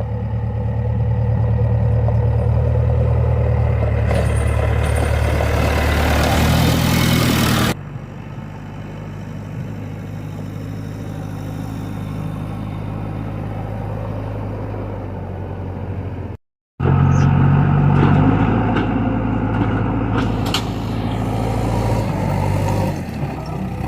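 JCB 3DX backhoe loader's diesel engine running at working revs, with a steady low drone whose engine speed jumps abruptly twice. A rushing hiss builds for a few seconds before the first jump, and the sound drops out completely for a moment about two-thirds of the way through.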